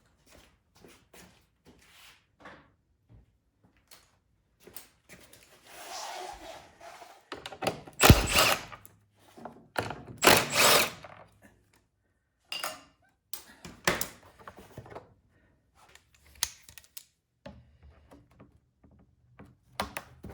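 Hand tools clicking and knocking against metal while bolts are undone to free a snowblower's gas tank, with two louder, noisy stretches of about a second each around eight and ten seconds in.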